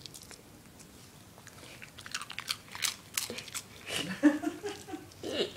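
Dog crunching and chewing pieces of crunchy breakfast cereal, in a quick run of sharp crunches starting about two seconds in. A brief voice-like sound follows about four seconds in.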